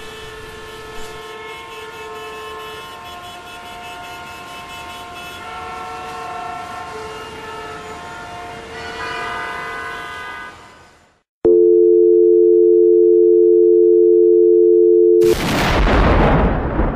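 Sound-sculpture collage: layered sustained tones over a hiss fade out, then after a brief gap a loud steady tone sounds for about four seconds and cuts off into a loud rush of noise that dies away near the end.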